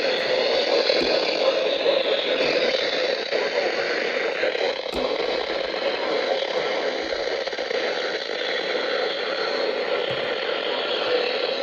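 Radio static: a steady hiss from a poorly received radio broadcast, with no clear voice or alert tone coming through.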